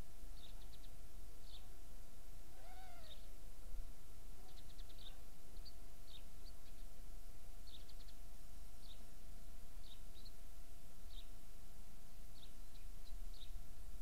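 Small garden birds chirping: short high notes every second or so, some in quick runs of three or four. About three seconds in comes one brief lower call that rises and falls, over a faint steady hum.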